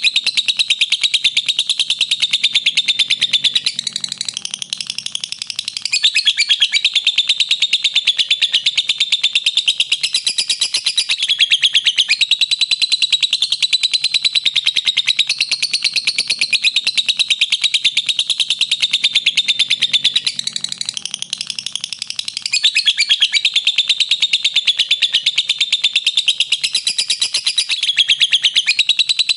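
Pet lovebirds chirping in a rapid, unbroken stream of high chirps, softening briefly twice.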